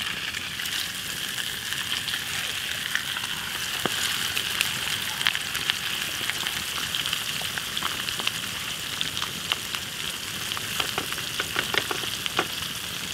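Food frying in a hot pan: a steady sizzle with scattered sharp pops, more of them near the end.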